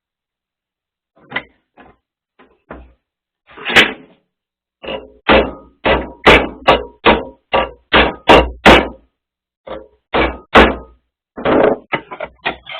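Hammer blows on a steel strip clamped in a vise, bending it over: a few light taps, then a long run of hard strikes about three a second, some with a short metallic ring.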